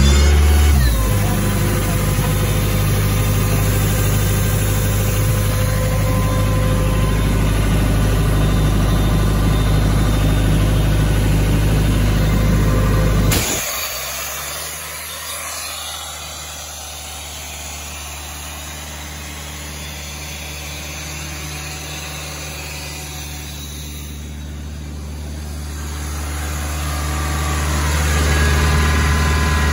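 Yanmar diesel engine of an Ingersoll Rand P185WIR 185 cfm skid-mounted air compressor running steadily. About 13 seconds in there is a sharp click as the ball valve on the air outlet line is worked, and the running sound turns quieter and lower, growing louder again near the end.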